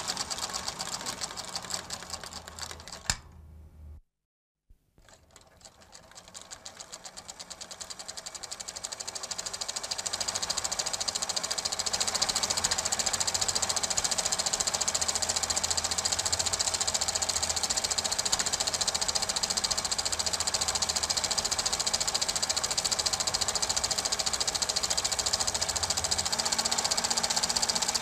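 Super 8 film projector running with a rapid, even clatter. It fades away about three to four seconds in, stops briefly, then fades back up and runs steadily.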